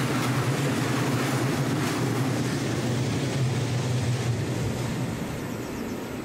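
Freight train of open-top goods wagons rolling away along the track, a steady rumble of wheels on rail with a wheel click about two seconds in. The rumble dies away from about five seconds in as the last wagons recede.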